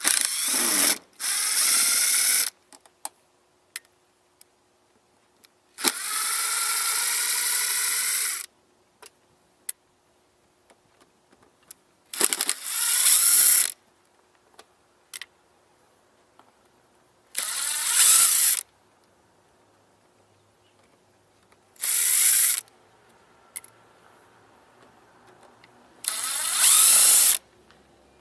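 Power drill running in short bursts, about seven times, each a second or two long and one about two and a half seconds, its pitch rising as each burst starts: bolts being backed out one after another.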